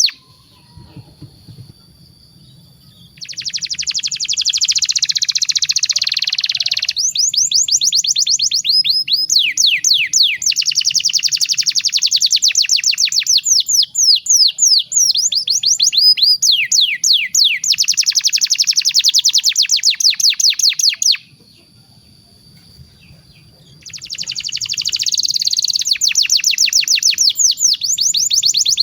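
Domestic canary singing a long song made of fast rolling trills and held whistled notes. The song stops for a few seconds at the start and again about three quarters of the way through, then starts up again.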